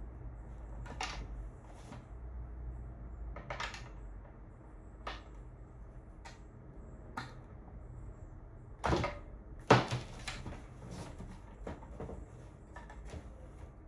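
Small clicks and knocks from a metal cabinet's control panel door and its bolt-on hardware being fitted and handled, with two louder clanks about nine and ten seconds in, over a steady low hum.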